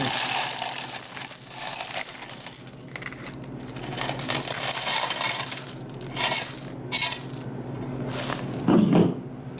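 Loose coins from a vending machine's change box being poured into a container: a long run of jingling, clattering change that eases off about three seconds in, then picks up again in several shorter pours.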